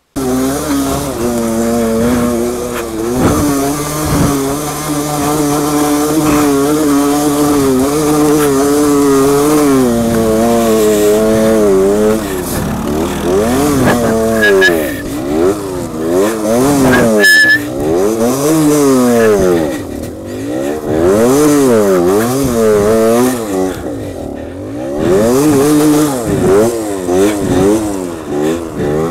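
Motorcycle engine running, held fairly steady for about the first twelve seconds, then revved up and down over and over.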